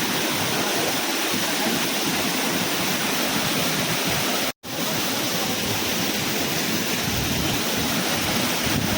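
Waterfall crashing onto rocks close by, a loud, steady rush of water, broken by a very short gap about halfway through.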